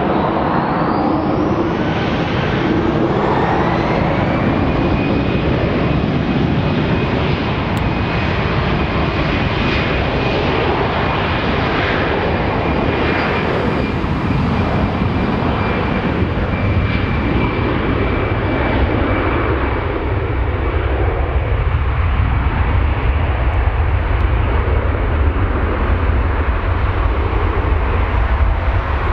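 Airbus A320-214's CFM56 turbofan jet engines: a high whine rises in pitch over the first few seconds as the engines spool up, then holds steady over a dense jet roar. A deep rumble builds through the second half.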